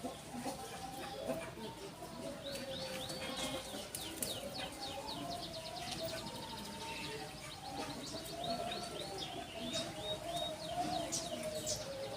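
Canary singing: rapid repeated chirps and trills in quick series, with a lower wavering sound running underneath.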